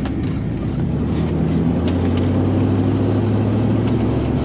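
Van engine running and road noise heard from inside the cabin while driving, a steady hum that grows a little louder about two seconds in.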